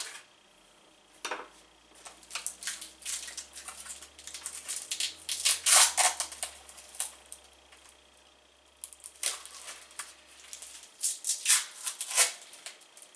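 Crinkling and rustling of packaging being pulled off an axe head by hand, in two spells of crackling with a quiet gap of a second or two between them.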